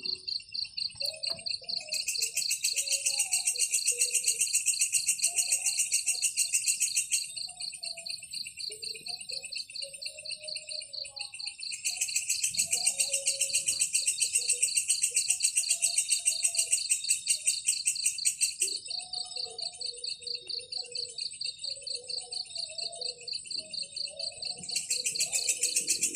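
Insects trilling in a steady, very rapid even pulse, with a louder rapid buzzing that comes in for several seconds at a time, three times.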